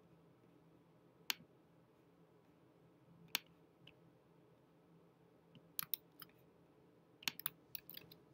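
Sharp, quiet clicks of a computer mouse and keyboard keys: single clicks about a second and about three seconds in, then quick runs of clicks and key presses near the end.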